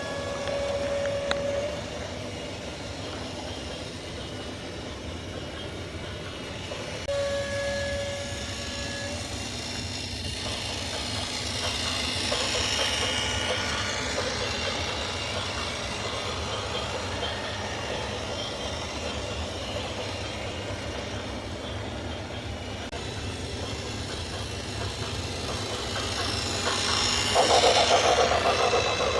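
A train sounding its horn twice, each a steady single note of about two seconds, just after the start and about seven seconds in. Between and after the blasts is the running noise of the train, which grows louder around twelve seconds in and again near the end.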